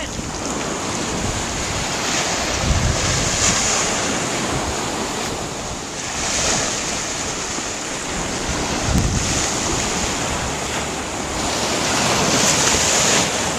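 Small waves washing up on a sandy beach in a steady hiss that swells and eases several times, with wind buffeting the microphone now and then.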